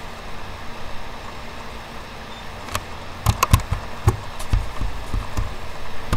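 A steady low hum of room and microphone noise. From about three seconds in come a quick run of sharp clicks, each with a dull knock, from a computer mouse being clicked and moved on the desk.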